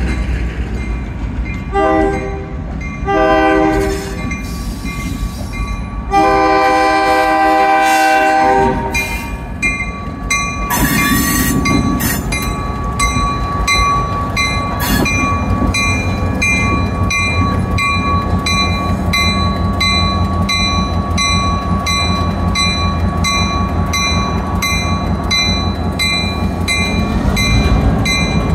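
Diesel locomotive sounding its horn several times, ending with a long blast about six to eight seconds in. It then rings its bell at about two strokes a second as it rolls slowly past close by, over the low rumble of its diesel engine.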